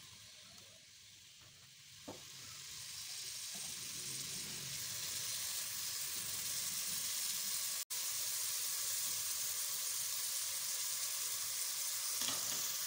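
Thinly sliced onions sizzling as they fry in hot oil in a metal pot, stirred with a slotted spoon. The sizzle builds over the first few seconds and then holds steady.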